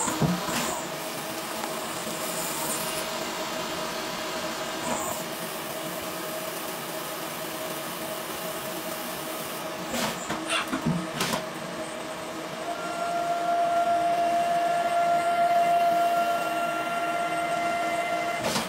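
CNC lathe turning a metal workpiece: steady machine hiss with a held tone that grows louder and brighter about two-thirds of the way through, and a few short sharp clicks.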